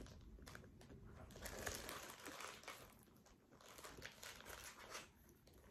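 Faint crinkling of a clear plastic zip-top pouch being handled, coming and going a few times.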